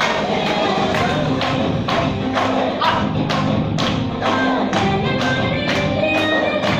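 Dance music with a steady beat of sharp percussion strikes, about two a second, under a melody.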